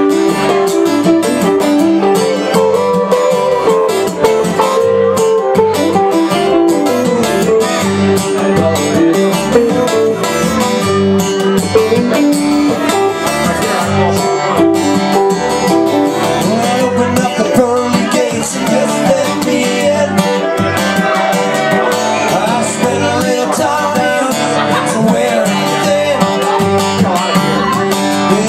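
Acoustic country/bluegrass string band playing live: strummed acoustic guitars with a bowed fiddle.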